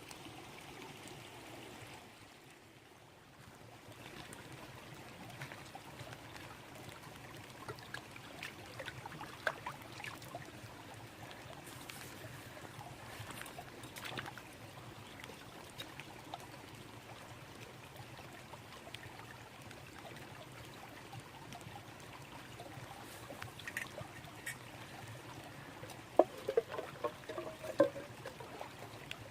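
Small brook babbling steadily, with scattered light taps over it. A few louder knocks come near the end.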